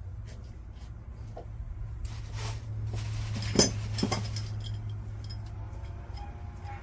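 Pipe fittings and hand tools clinking and knocking during water heater pipe repair: a scraping rustle, then two sharp clinks about three and a half and four seconds in, over a steady low hum.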